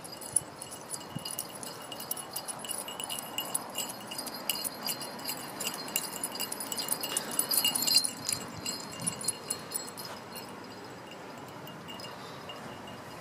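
Tags on a running dog's collar jingling quickly with its strides, loudest about two-thirds of the way through, then fading out as the dog slows to a walk.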